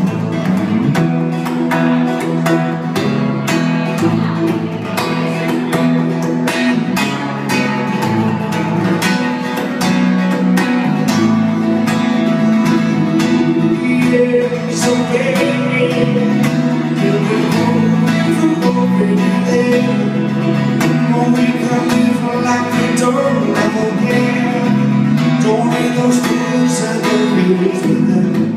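Live band music: a steel-string acoustic guitar strummed steadily with a second guitar underneath, and a man singing lead over it at times.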